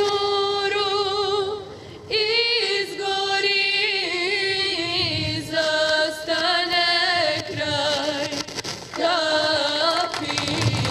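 A high voice singing a slow melody in long held notes with vibrato, pausing briefly about two seconds in and again near nine seconds.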